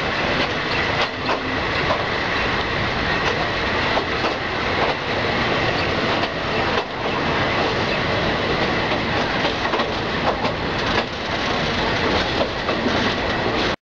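State Railway of Thailand passenger carriage running along the track, heard from an open window: a steady rush of wheel and rail noise with irregular clacks over the rail joints. A faint high steady tone runs through the first half.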